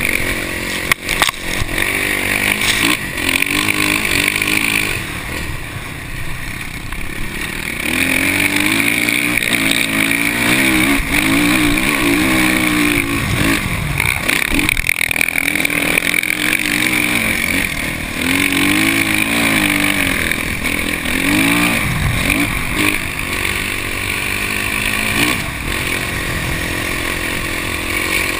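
Dirt bike engine revving up and dropping back again and again as the throttle is worked, with wind noise over the microphone. There are a couple of sharp knocks about a second in.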